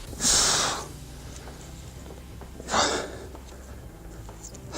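A person breathing out hard twice, two short breathy huffs, the first near the start and a shorter one about two and a half seconds later.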